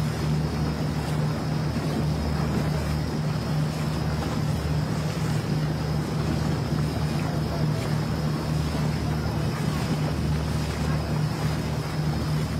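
A motor running steadily with a low, even hum, over outdoor wind noise.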